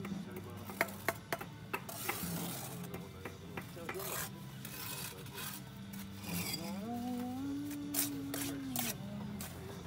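Steel bricklaying trowel knocking on bricks a few times in quick succession, then scraping and spreading mortar in several separate strokes. Background music plays underneath.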